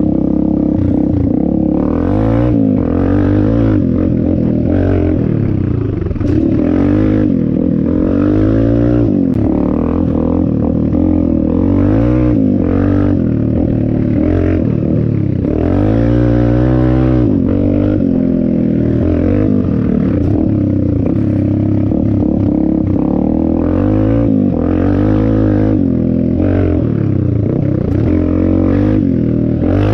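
Dirt bike engine revving up and down again and again as it is ridden hard around a dirt track, its pitch rising and falling with each burst of throttle and gear change.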